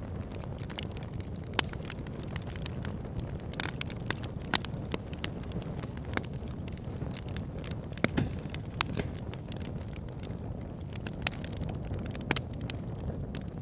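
Wood logs burning in a fireplace: a steady low rumble of flames with irregular sharp crackles and pops, the loudest about a second and a half in and again around four and a half seconds.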